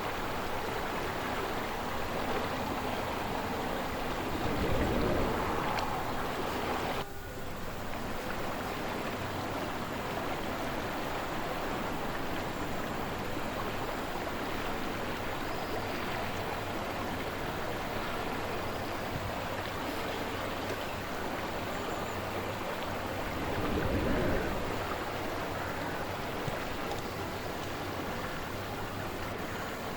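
Slow-moving river water flowing with a steady rushing wash. Two brief low gusts of wind buffet the microphone, one about five seconds in and another about two-thirds of the way through. The sound drops abruptly about seven seconds in.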